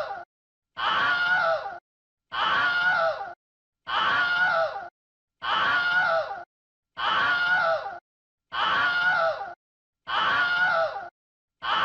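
A human scream sound effect looped over and over. The same scream, about a second long, repeats roughly every one and a half seconds with dead silence between repeats.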